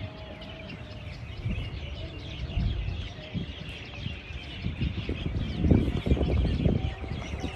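A dense chorus of many small birds chirping and tweeting over one another, with low rumbling thumps underneath that are loudest around six seconds in.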